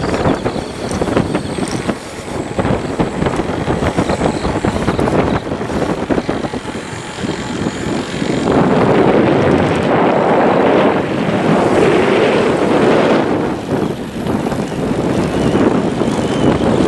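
Wind buffeting a camcorder's microphone in uneven gusts, growing stronger about halfway through.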